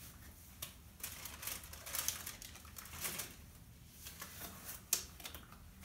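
Sterile gloves being put on: irregular crinkling and rustling of the gloves and their packaging, densest a second or two in, with a sharper click about five seconds in.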